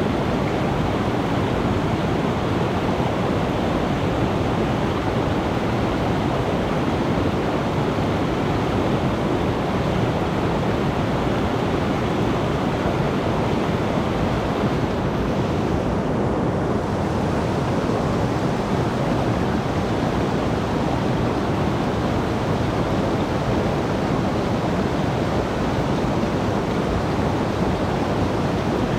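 Rain-swollen mountain stream rushing, a loud steady roar of fast water.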